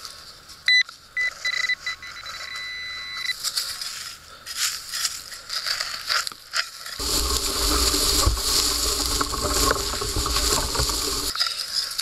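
Metal detecting pinpointer sounding over coins in a dig hole: a few short beeps then a steady high tone for about two seconds. Later comes a longer, louder stretch of scraping and rustling in dry soil and grass.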